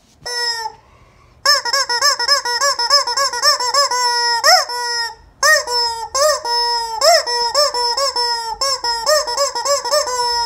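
Squeaky rubber chicken toy being squeezed over and over: one short squeak, then fast runs of squeaky honks, about four a second, each rising and falling in pitch, with a brief pause just past the middle.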